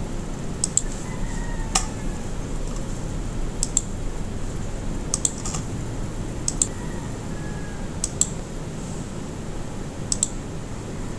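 Scattered sharp clicks on a computer, single and double, about one every second and a half, over a steady background hum.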